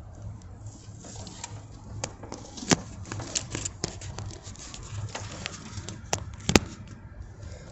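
V8 engine idling with a low pulsing rumble and irregular sharp clicks and taps over it. The engine has been knocking since a DOD delete, which the owner thinks may come from the vacuum pump or a wobbly harmonic balancer.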